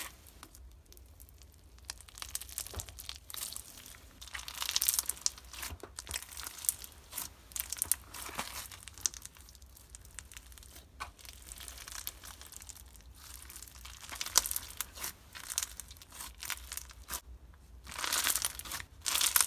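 Hands squishing, stretching and poking a white slushy slime full of small pellets and fake sprinkles, giving irregular bursts of fine crackling, popping and wet clicking.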